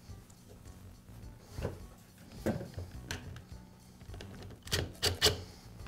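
Sharp metallic clicks and taps from the brass pump head and its bolts being handled against the aluminium pump housing, a few scattered, then three loud ones in quick succession near the end.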